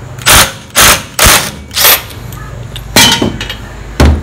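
Cordless Makita 18V impact driver hammering in about five short trigger bursts to break loose the casing screws, then a short sharp knock near the end.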